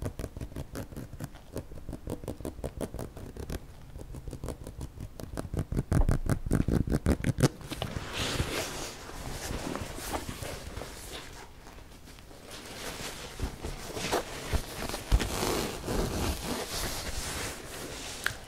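Fingernails scratching quickly over a fabric laptop bag close to the microphone, a fast run of small scratchy clicks. About halfway through it gives way to the bag's fabric rustling and rubbing as it is lifted and turned.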